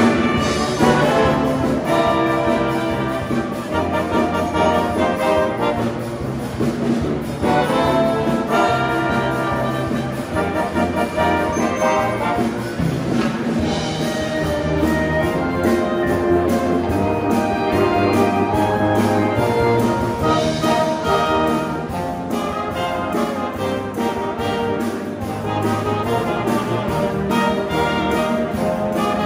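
Military band playing a piece, led by its brass: trombones and trumpets over a steady bass line.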